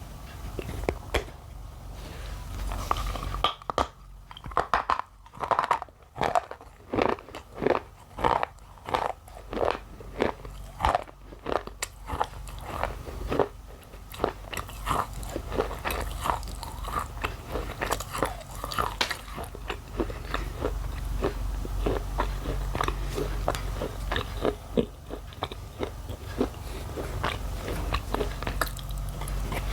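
Thin white shale being bitten and chewed, a close series of dry crunches. Sharp, separate crunches come about twice a second at first, then quicker, smaller crunching from about halfway on as the pieces are chewed.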